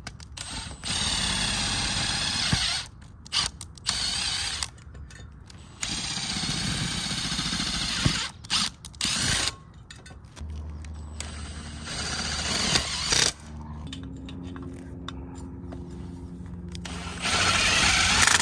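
Cordless Milwaukee impact drivers driving bolts and screws into a metal junction box on a solar mounting rail: several runs of rattling hammering, each a second or two long, with short bursts between them and a quieter steady hum in the second half.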